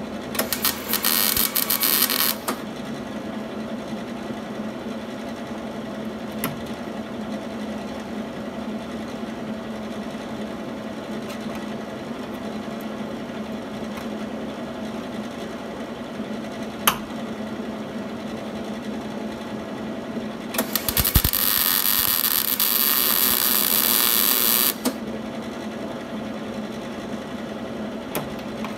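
Wire-feed MIG welder arc crackling in two bursts as sheet-metal inner structure is stitch-welded: about two seconds at the start, then about four seconds of welding starting some twenty seconds in. Between the bursts a steady hum continues, with one sharp click midway.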